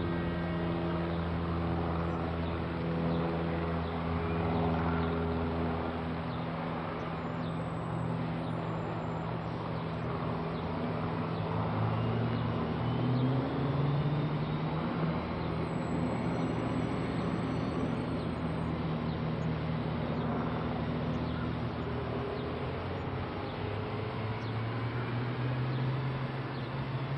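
Motor vehicle engine noise: a steady low hum whose pitch steps up a few times, over a constant noisy rumble.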